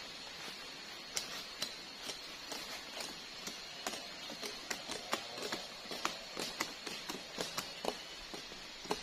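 Irregular crackles and snaps of dry sugar palm fronds and leaf litter being pulled down, dragged and trodden on. They start about a second in and come thicker towards the end.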